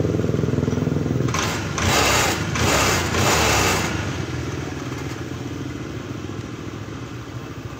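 Honda Air Blade scooter's fuel-injected single-cylinder engine running, revved in three quick surges starting about a second in, then settling back to a steady idle. It is running on a newly replaced oxygen sensor whose voltage now reads within range.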